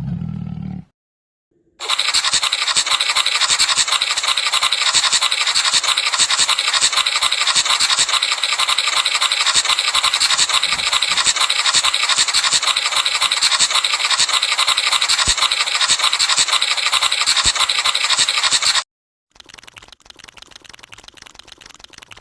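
A loud, steady, fine-grained scratching noise that lasts about seventeen seconds and stops abruptly. After a short pause it returns much quieter for a few seconds.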